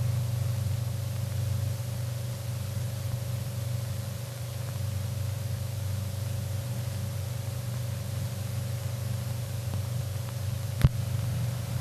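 Steady hiss and low hum of a 1929 Movietone optical sound-on-film soundtrack, with one sharp click near the end.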